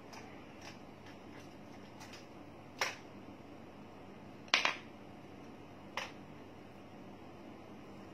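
A few short, sharp clicks and taps from handling an eyeshadow palette and makeup brush: one about three seconds in, a louder double click past the middle, and another about six seconds in, with fainter ticks between.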